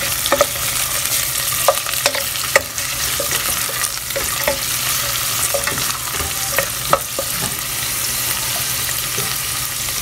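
Sliced onions, green chillies and curry leaves sizzling in hot oil in a stainless steel pan, stirred with a wooden spatula that knocks against the pan now and then. The sizzle is steady, and the sharp taps come at irregular moments.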